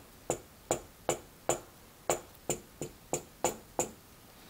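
Elmer's purple glue stick clicking against a 3D printer's heated bed with each rubbing stroke: a run of sharp clicks with a short ring, two or three a second at uneven spacing, stopping shortly before the end as the stick is lifted away.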